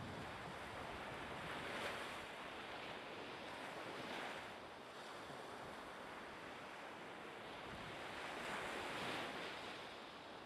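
Outdoor ambience of wind and harbour water: a steady hiss that swells a few times, about two, four and nine seconds in.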